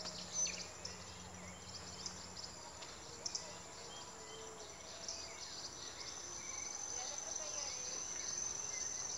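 Forest insects buzzing in a high-pitched steady drone that grows louder and more constant about halfway through, with scattered short bird chirps and calls over it.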